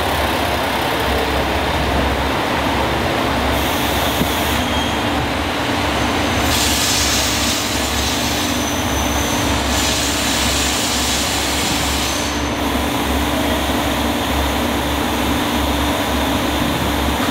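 A-Train diesel railcar of the KiHa 185 series rolling along a station platform and drawing to a stop, with a steady low engine hum and rail noise. A brighter hiss comes in about six seconds in and fades out around twelve seconds.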